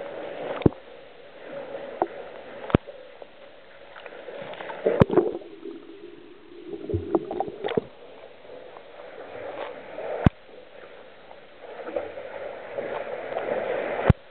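Water splashing and sloshing in uneven strokes as a person swims through a cave pool, with about seven sharp clicks or knocks spread through it.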